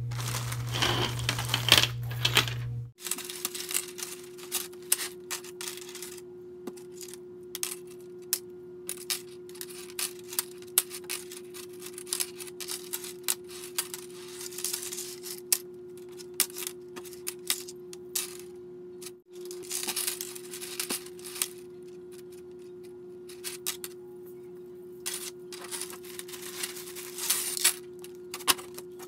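Clear plastic bag crinkling and the small metal clasps of cord lanyards clinking against each other and the table as the lanyards are handled and laid out: many short, irregular clicks and rustles.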